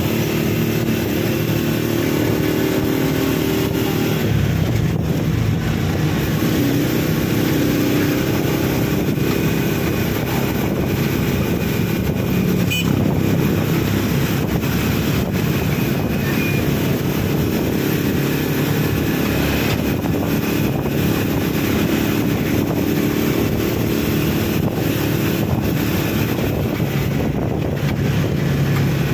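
A motor vehicle's engine running steadily, its pitch shifting a little now and then.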